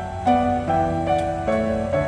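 Relaxing background music of slow, held keyboard-like chords, with the notes changing about every half second.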